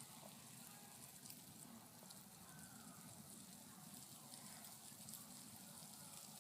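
Near silence: a faint, even outdoor hiss with a few scattered faint ticks.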